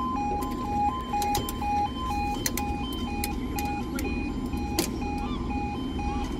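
Railway level crossing warning alarm sounding as the barriers come down: a two-tone alarm alternating between two pitches about twice a second, stopping shortly before the end. A low steady rumble and a few sharp clicks lie underneath.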